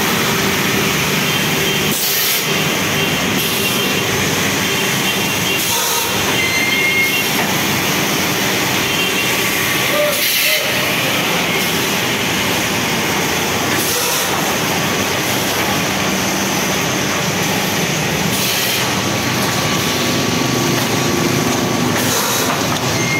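Egg tray production line running: steady, loud machinery noise from the rotary pulp-moulding machine and drying line, with short hissing bursts about every four seconds.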